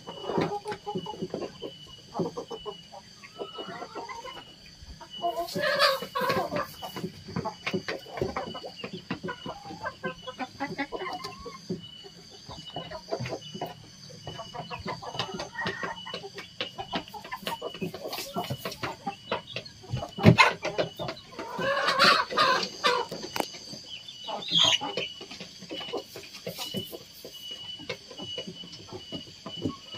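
Domestic chickens clucking, with many short taps mixed in. There are louder bursts of calling about six seconds in and again around twenty-two seconds.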